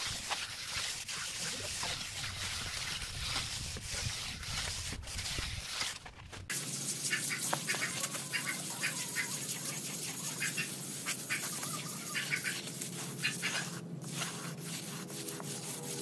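Steel trowel scraping and smoothing wet cement render over a curved brick wall, a steady gritty scrape with each stroke. The background changes abruptly about six seconds in.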